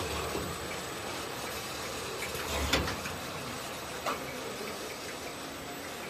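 Automatic multi-head liquid filling machine running, a steady mechanical hum broken by a few sharp clacks from its moving parts, the loudest with a low thump about two and a half seconds in.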